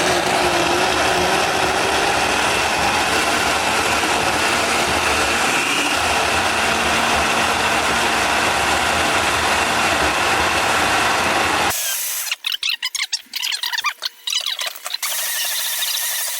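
Countertop blender running steadily at speed, blending oats and peanuts into a purée for porridge, then cutting off suddenly about twelve seconds in. Irregular clicks and rattles follow to the end.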